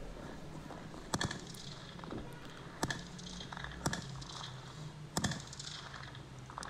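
Gunshots from rifles, about four sharp single cracks spaced a second or more apart with a few fainter ones between, over a steady hiss: what appears to be suppressive fire from comrades behind the advancing soldiers.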